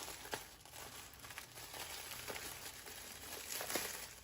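Faint rustling and crinkling of paper and plastic packaging being handled, with a few soft ticks.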